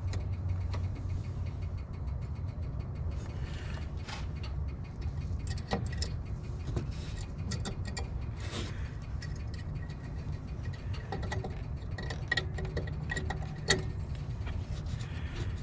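Small scattered clicks and light rattles of a halogen headlight bulb and its metal retaining clip being handled and seated in the headlamp housing, with a sharper click about halfway through and another near the end, over a steady low hum.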